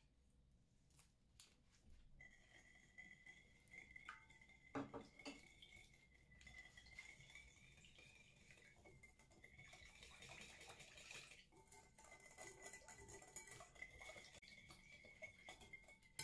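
Metal wire whisk beating egg into a wet mixture in a glass mixing bowl: quick clinking and scraping of the wires against the glass, with a steady high ringing tone throughout the whisking and one sharper knock about five seconds in.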